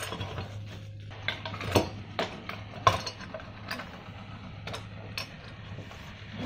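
Small metal lamp parts clinking and clicking irregularly as they are handled and fitted together, with two sharper knocks about two and three seconds in, over a low steady hum.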